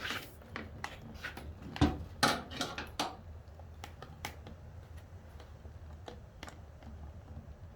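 Sharp clicks and taps of a hand tool and hands working plastic trim clips on a car seat. They come in a quick cluster that is loudest about two seconds in, then thin out to a few fainter taps, over a steady low hum.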